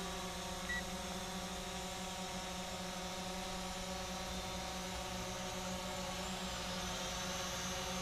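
Visuo mini quadcopter drone in flight, its small electric motors and propellers giving a steady, even hum made of several pitches.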